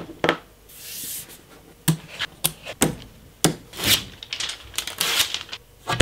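Adhesive tape being pulled off a roll in short hissing tears and rubbed down by hand onto a smooth laminated board, with about half a dozen sharp knocks and taps of hands and tools on the workbench.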